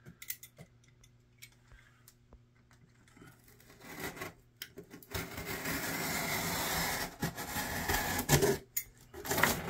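Box cutter slicing through the side of a corrugated cardboard box: a steady scraping that starts about five seconds in and runs for about four seconds, after a few faint clicks.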